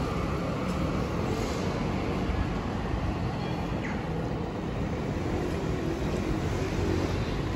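Steady low rumble of city street noise, with a vehicle running.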